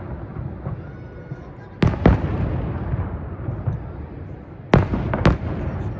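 Aerial fireworks shells bursting: a pair of sharp bangs about two seconds in and another pair near the end, each trailing off into a low rolling rumble of echo.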